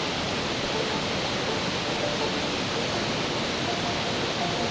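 Steady rushing roar of a waterfall, an even wash of falling water with no change in level.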